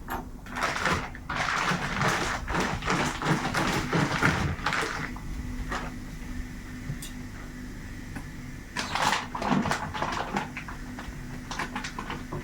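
Plastic packaging being pulled and handled while a packed mattress is unwrapped: irregular rustling and scraping, busy at first, easing off for a few seconds in the middle, then starting again.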